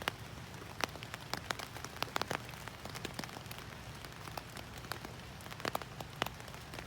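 Rain falling on a tarp shelter: a steady hiss with many irregular, sharp taps of single drops.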